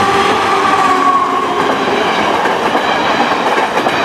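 Electric push-pull passenger train passing close by at speed, wheels clattering over the rails, with a steady whine in the first second and a half.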